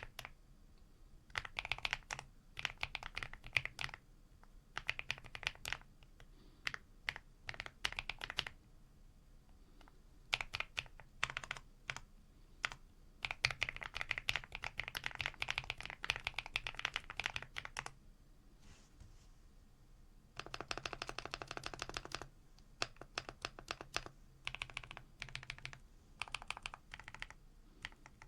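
Mechanical keyboard fitted with linear switches being typed on: runs of rapid keystrokes a second or two long, with short pauses between them.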